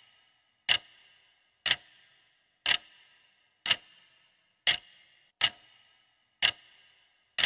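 Countdown-timer ticking sound effect: about eight sharp clock-like ticks, one a second, each with a short fading ring.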